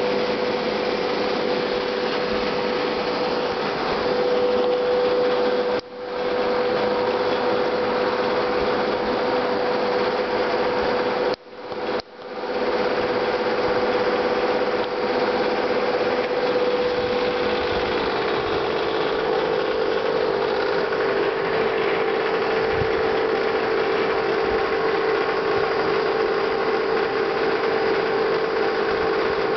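Aquarium pump running steadily: a constant motor hum over a rushing noise. It cuts out briefly twice, about six and twelve seconds in, and comes straight back.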